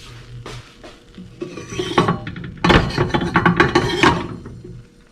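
Rapid metallic clattering and rattling of kitchenware with a ringing tone, for about three seconds in the middle.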